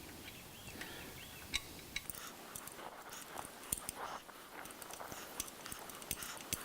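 Irregular small metal clicks, taps and scrapes of hand work as the wood chipper's tachometer sensor is fitted back into its bracket and its nuts are tightened.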